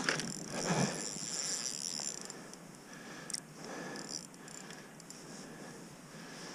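Faint handling sounds of a small spinning ice-fishing rod and reel as the reel is wound, with soft, fairly regular ticks.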